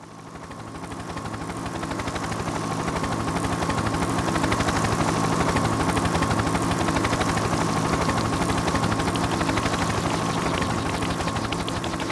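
A steady, rapidly pulsing mechanical drone over a low hum, fading in over the first two seconds and then holding.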